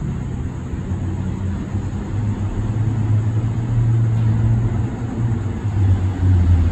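An SRT Red Line suburban electric train approaches, heard as a steady low hum over a rumble that slowly grows louder.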